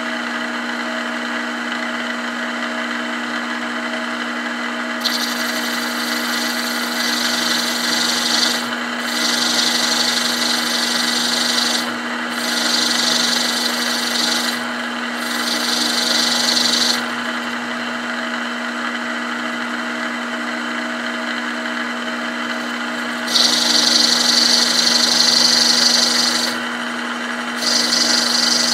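Milling machine spindle running steadily at about 700 rpm with a two-flute 7/16" end mill counterboring a brass button. From about five seconds in, the cut comes and goes in several stretches of a few seconds each, each adding a high hiss over the motor's steady hum. The cut is loudest near the end.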